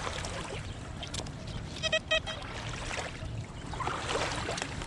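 XP Deus 2 metal detector giving a short run of about four quick, evenly pitched beeps about two seconds in, its polyphonic tone for a non-ferrous target. Steady background noise runs underneath.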